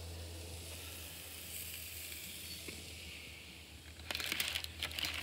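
A faint steady hiss, then from about four seconds in a run of sharp crackling and rustling as the white butcher paper under the raw hamburger patties is handled.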